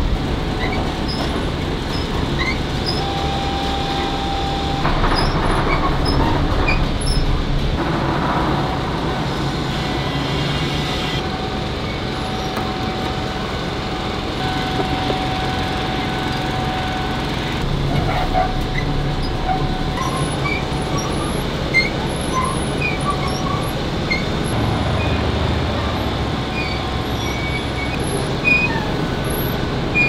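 Steady mechanical din of foundry machinery running, with a thin steady whine that comes and goes.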